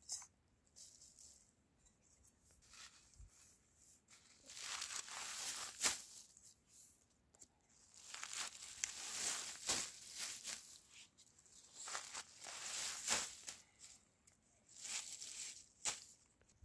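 Stinging nettle leaves rustling and crinkling as they are gathered and turned with bamboo tongs, in several bursts of a second or two with a few sharp clicks among them.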